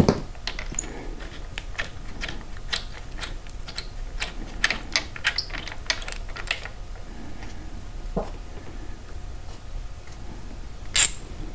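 Light, irregular clicking and ticking of small metal motorcycle hardware being handled as the bolt is taken out of an offset perch mount, several clicks a second for the first seven seconds. A low knock about eight seconds in and a sharper click near the end.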